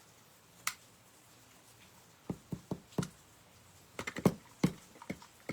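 A run of irregular light taps and clicks, starting about two seconds in and coming more thickly near the end, with one lone click earlier.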